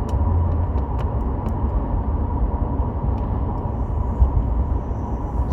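Steady low rumble of background noise with a faint steady tone above it and a few light clicks.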